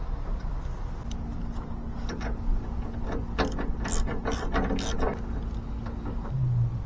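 Rapid ratcheting clicks, bunched between about two and five seconds in, over a steady low hum.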